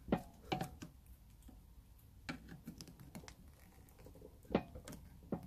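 Scattered light clicks and taps of pliers gripping and working at a plastic transport oil plug in an air compressor's aluminium crankcase, with a cluster of quick ticks about two to three seconds in.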